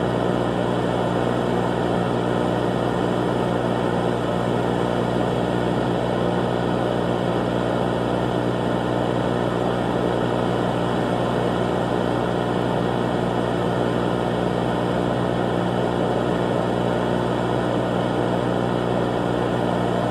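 Steady dark ambient drone: a low, dense hum with a grainy noise layer over it, unchanging in level and pitch.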